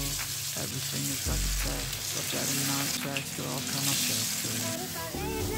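Hot oil in a kadai sizzling as pieces of spice-marinated rohu fish are laid in one after another to fry, a steady frying hiss.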